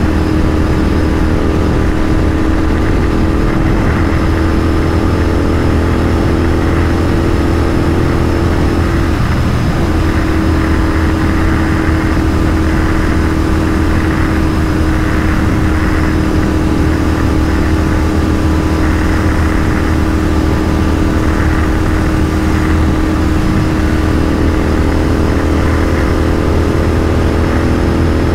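Royal Enfield 650 parallel-twin motorcycle engine running at a steady highway cruise, its note holding one pitch. The pitch dips briefly about nine seconds in, then settles back.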